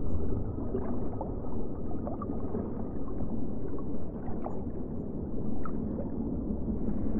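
Muffled, low water noise from an aquarium tank, with faint scattered bubbling ticks over it.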